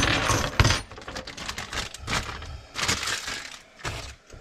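Handling noise from a garbage disposal's plastic fittings being fitted by hand: a sharp knock about half a second in, then softer scattered clicks and scraping.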